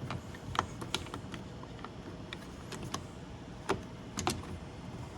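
Scattered light clicks and taps of small plastic trim fasteners and door-panel parts being handled, a few sharper ones near the middle.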